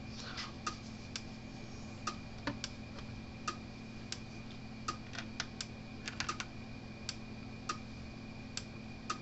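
Gallagher M800 electric fence energizer pulsing: sharp clicks and snaps about once a second, a few bunched together, over a faint steady hum. The snapping is the normal sound of a working unit putting out 10 kV plus.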